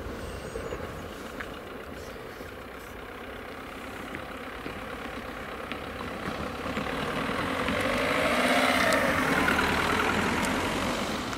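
Peugeot hatchback driving over the level crossing and past at low speed, its engine and tyres growing louder to a peak about eight or nine seconds in, then easing off.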